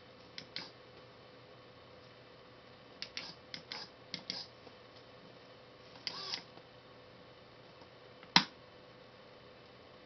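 Pushbuttons and switches on a backlit control panel clicking under a finger: a pair of clicks, then a quick run of about six, then a double click, and one sharp, much louder click near the end.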